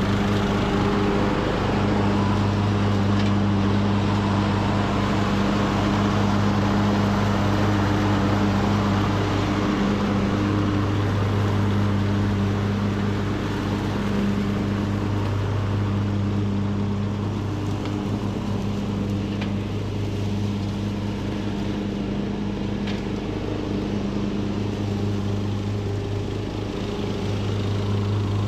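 Craftsman LT2000 riding mower's engine running at a steady speed without surging, with its deck blades engaged while mulching leaves. It grows a little quieter as the mower drives away and louder again near the end as it comes back.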